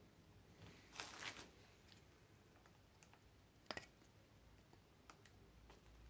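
Faint handling noise from a bamboo jar lid with a silicone seal being worked by hand: a short crinkly rustle about a second in, one sharp click a little past halfway, and scattered light ticks.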